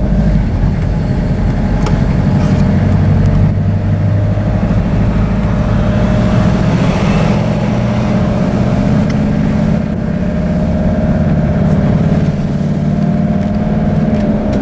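Steady engine and road noise inside the cabin of a Toyota van driving along a paved road at an even speed.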